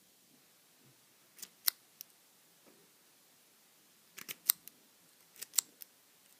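Sharp clicks in a few quick clusters as the back of a lock pick is bumped against the pin tumblers of a Master Lock padlock, jarring the pins the way a bump key does.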